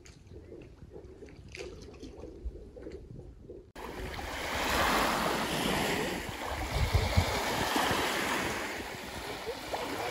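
Small lake waves washing up onto a sandy beach, with wind on the microphone. The surf sound starts abruptly about four seconds in, after a quieter stretch of faint water sound and low rumble.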